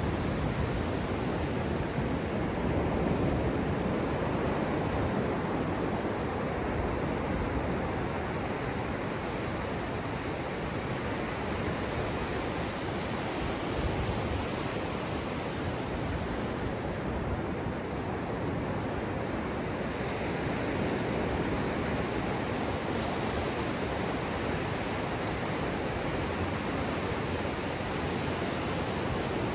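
Ocean surf: small waves breaking and washing up a sandy beach close by, a steady rush that swells slightly as each wave comes in.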